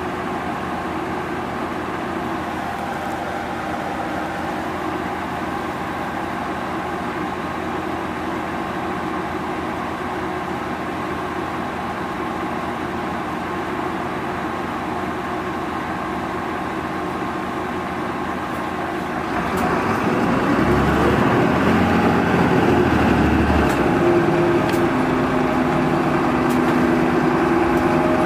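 Interior sound of a Mitsubishi Fuso 2PG-MP38FK city bus: the diesel engine runs steadily, then about 19 seconds in it grows louder as the bus accelerates, the engine note climbing in pitch near the end.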